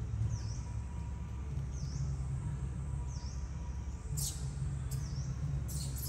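A bird repeating a short, high chirp about every second and a half, over a steady low rumble. Scratchy rustles come in a few times from about four seconds in.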